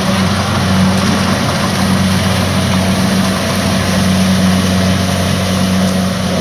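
Kubota DC-70 combine harvester's diesel engine running steadily, with a constant low hum.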